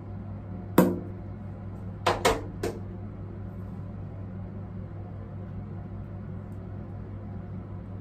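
A sharp plastic knock about a second in, then three quicker, lighter clicks around two seconds in, from a plastic cosmetics jar and its lid being handled and set down at a washbasin. A steady low hum lies underneath.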